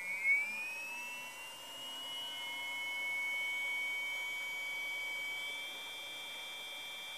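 Hobbywing EzRun 2200 kV brushless motor spinning up unloaded on a motor analyzer. Its high whine rises in pitch over the first couple of seconds as the throttle is turned up, then holds steady at full test speed. There is a short louder swell just after it starts.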